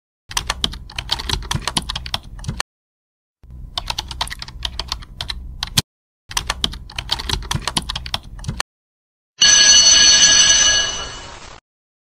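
Three bursts of computer-keyboard typing clicks, each about two seconds long with short gaps between them. A loud bell then rings for about two seconds and fades out.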